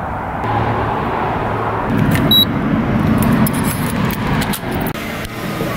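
A car's engine and road noise rumble steadily, then grow louder for a second or so, with one short high electronic beep in the middle. Near the end come several quick clicks and the jangle of keys.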